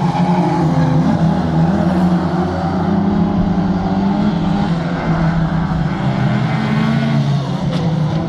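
Banger racing cars' engines running hard around a shale oval, a loud continuous mix of several cars whose pitch rises and falls as they accelerate and lift for the bends.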